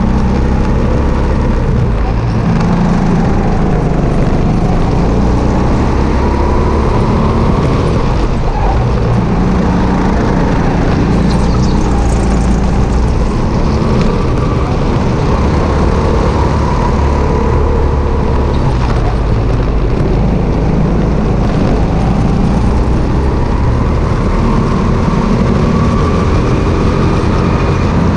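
Sodi RT8 rental kart's engine running hard, from a camera mounted on the kart itself, its pitch rising on the straights and falling back into the corners every few seconds. Other karts' engines run close by, all ringing around a large indoor hall.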